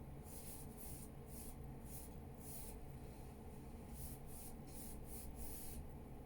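Acrylic paintbrush bristles brushing and dabbing, a run of quiet, quick swishes, two or three a second, with a pause near the middle, over a low steady hum.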